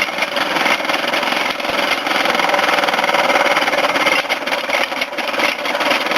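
A steady rushing, machine-like running noise with no clear strikes.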